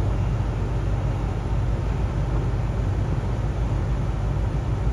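Steady low rumble of outdoor background noise, deep in pitch and even throughout, with no distinct events.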